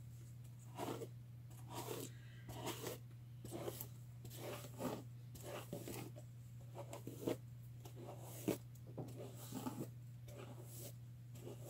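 A hairbrush being dragged through wet, knotted hair in repeated short strokes, roughly one a second, as the hair is detangled. A steady low hum runs underneath.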